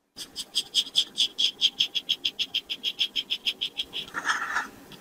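Straight razor scraping stubble through shaving foam in quick, short, rhythmic strokes, about seven a second.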